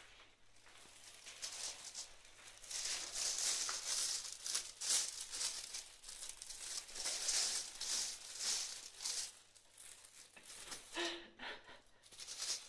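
Thin plastic bag crinkling and rustling in irregular bursts as a cat inside it licks and pushes at the plastic.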